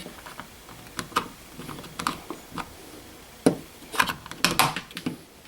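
Light plastic clicks and rubbing as a Nest thermostat display is pushed onto its wall base, with a few sharper clicks in the second half as it seats.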